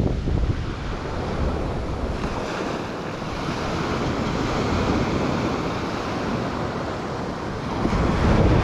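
Ocean surf breaking and washing up a beach, a hissing wash that swells through the middle, with wind buffeting the microphone at the start and again near the end.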